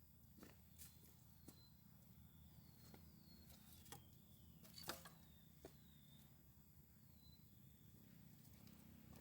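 Near silence: faint forest ambience with a low steady rumble, several brief faint high chirps and a few soft clicks, the sharpest about five seconds in.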